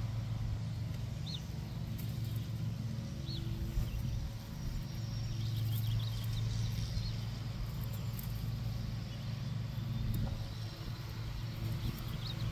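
A motor vehicle's engine running steadily at an even pace, a low hum throughout.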